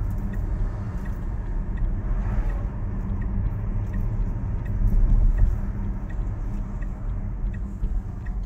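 Road and tyre rumble heard inside the cabin of a moving Tesla electric car, with no engine note, swelling slightly about five seconds in. A right turn signal ticks steadily about twice a second throughout.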